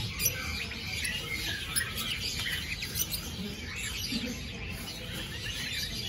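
Many caged songbirds chirping and calling at once: a dense, unbroken chatter of short high calls.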